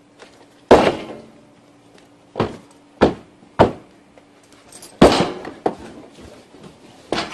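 A series of about seven sharp bangs and thuds at irregular spacing, with two louder ones that ring on briefly, one near the start and one about five seconds in.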